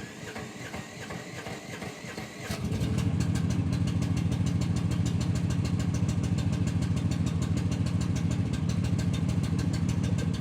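Mini excavator engine cranking on its starter, catching about two and a half seconds in, then running at a steady idle.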